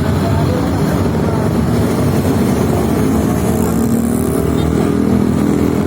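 Busy road traffic with motorcycles and other engines running. About halfway through, the steadier engine note of a large vehicle, likely the approaching bus, comes up.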